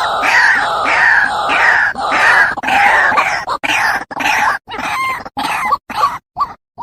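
White-breasted waterhen calling as a bird-trapping lure: loud, harsh notes repeated a few times a second, each falling in pitch. Near the end the calling breaks into short choppy notes with abrupt silent gaps.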